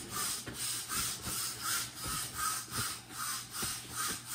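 Paper towel rubbed between the hands, a rhythmic papery rustle of about two to three strokes a second as the hands are wiped dry.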